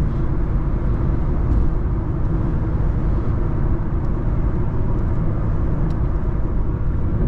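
Steady road noise inside an Infiniti Q50's cabin at highway speed: tyre rumble and engine, even and unchanging.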